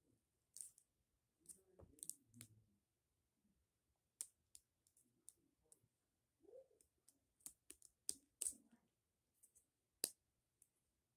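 Faint, irregular small clicks and taps from objects being handled, the sharpest about ten seconds in.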